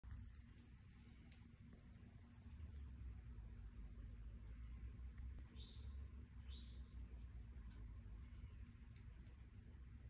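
Steady high-pitched insect drone, with two short down-slurred bird notes about a second apart just past the middle, over a faint low rumble.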